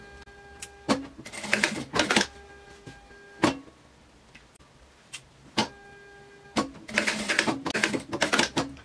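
Industrial straight-stitch sewing machine stitching a seam in short runs of rapid clatter, one a little over a second in and a longer one near the end, with single sharp clicks between runs. A steady high whine sounds during the pauses in the first half and again briefly just before the last run.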